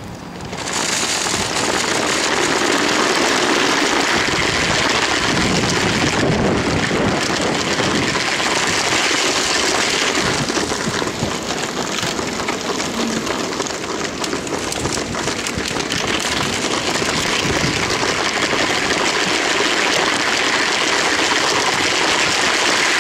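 Motorized Lego train running along plastic track, heard up close from on board: a steady, dense rattle of plastic wheels and motor that builds up within the first second, then holds.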